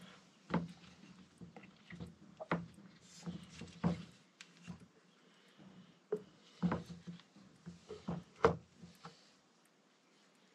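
Light clicks and sharp knocks of a motorcycle brake caliper piston being handled and pushed against the caliper bore by hand, the piston not seating past its new seal. The knocks come irregularly, the sharpest about two-thirds through, and stop about nine seconds in.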